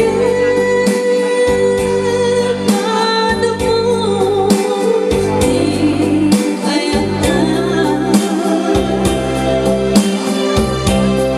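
A song with a sung vocal and a heavy bass line that drops out briefly about every two seconds, played loud through a PA sound system of a mixer and amplifiers.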